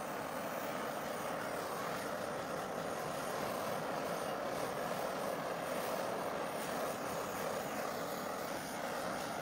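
Handheld butane torch on a gas canister burning with a steady flame hiss as it scorches pine boards.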